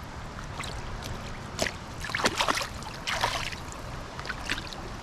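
Several short splashes on the surface of a flowing stream while a hooked trout is being played in, the loudest a cluster a little over two seconds in, over the steady rush of the current.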